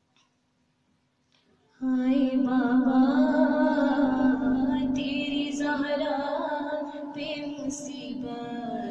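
A woman's solo voice singing a noha, an Urdu lament, through a handheld microphone. After a near-silent pause it comes in about two seconds in with long held notes that waver in pitch.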